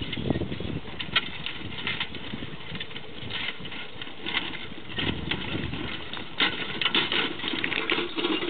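Horse-drawn disc harrow pulled by a pair of Norwegian Fjord horses over freshly plowed soil: irregular clinking and rattling of the harrow's steel discs, frame and harness, with the horses' steps. It grows louder about two thirds of the way in as the team comes close.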